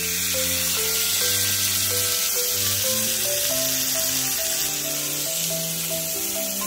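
Meat sizzling on a 600 W electric multi-cooker hot plate, a steady hiss, under background music with a slow stepping melody.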